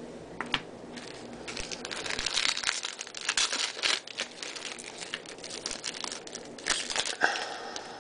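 Shiny foil wrapper of a 2011 Topps Series 2 baseball card pack being torn open and crinkled by hand. A few sharp crackles come about half a second in, then dense crinkling until about seven and a half seconds in.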